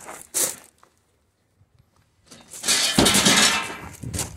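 Recoil starter of a Honda GX390 pressure-washer engine being pulled to start it: a short knock near the start, then, after a second or so of quiet, a loud rasping pull lasting under two seconds.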